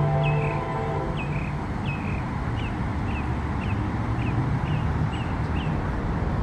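A diesel locomotive's multi-tone air horn chord ends about a second in, leaving the low rumble of the approaching CSX train. Short high chirps repeat about twice a second throughout.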